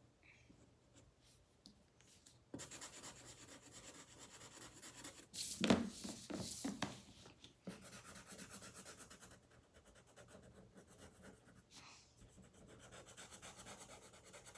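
Felt-tip Sharpie marker scribbling back and forth on paper as a picture is colored in, in spells of rapid scratchy strokes. About halfway through there is a louder, brief rustle and knock of handling.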